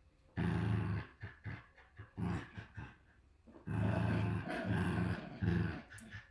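Shiba Inu dogs growling in play during a tug of war over a rope toy: a long low growl near the start, a run of short growls, then a long steady growl from about halfway.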